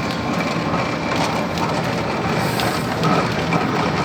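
A pedal-powered washing machine, built from a scrap exercise bike, angle grinder and washing machine, running steadily as it is pedalled, with a continuous mechanical rattling churn.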